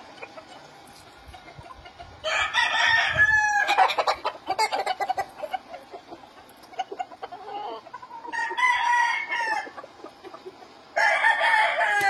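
Gamecocks crowing in their pens: one long crow about two seconds in, another about eight seconds in, and a third starting near the end, with short clucks in between.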